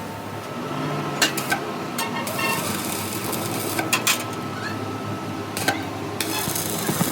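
Scattered clinks and knocks, as of hand tools on metal parts, over a steady low hum, with a short scraping rasp about six seconds in.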